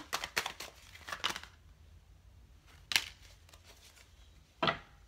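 A deck of tarot cards being shuffled by hand: a quick run of papery card flicks for about the first second and a half, then two single sharp card clicks, one near the middle and one near the end.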